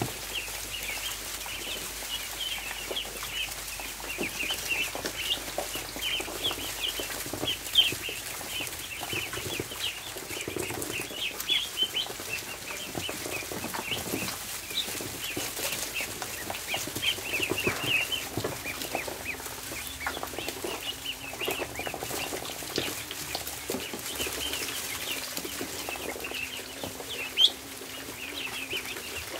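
Many ducklings peeping continuously, their short high chirps overlapping, with two sharp knocks: one about eight seconds in and a louder one near the end.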